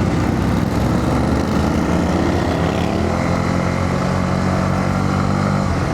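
Honda CB125R's 125 cc single-cylinder four-stroke engine running under way, its pitch rising gradually over the first few seconds and then holding steady, with wind and road noise underneath.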